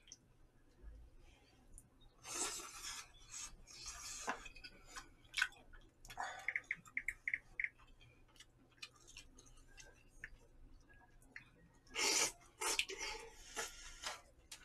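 Mukbang eating sounds of jjamppong noodles: loud slurps of noodles about two seconds in, again near four seconds, and a longer run near twelve seconds, with chewing and small clicks in between.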